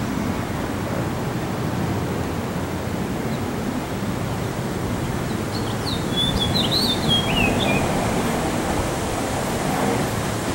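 A house finch sings one short warbling phrase of quick rising and falling notes about halfway through, over a steady low rumble of background noise.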